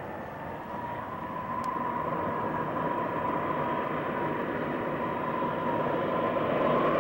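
Four Pratt & Whitney JT3D turbofans of a DC-8-63 on final approach: a steady jet roar with a high whine, growing louder as the airliner closes in.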